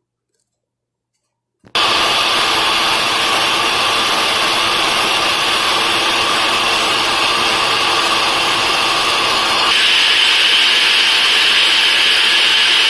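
NutriBullet blender switched on and blending a thick smoothie of fruit, carrot, oats, peanut butter, yogurt and milk: the motor and blades start abruptly and run steadily and loud. About ten seconds in, the sound shifts higher and slightly louder.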